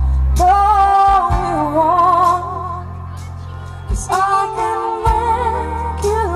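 Live band playing a slow song amplified through a PA, with a woman singing long held notes with vibrato; a new sung phrase starts about four seconds in, over steady bass and a few drum hits.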